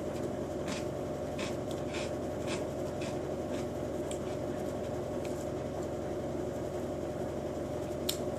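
A person chewing a mouthful of a blended protein mix with Cocoa Puffs in it, with soft crunches about every half second over a steady background hum, and a sharper click near the end.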